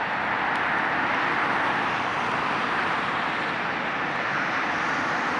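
Steady rush of highway traffic, a continuous even roar of tyres and engines with no single vehicle standing out.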